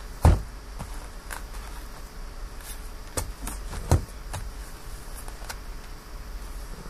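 Cardboard boxes of SP Authentic hockey cards handled and set down on a table: a few sharp knocks, the loudest about a quarter second in and two more around three and four seconds in, over a low steady hum.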